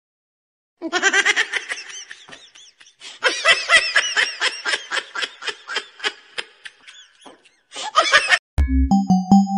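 Emperor penguin chick calling in a rapid string of short, chirping whistles, several a second, from about a second in until near the end. Near the end a loud thump and steady tones of a short music sting.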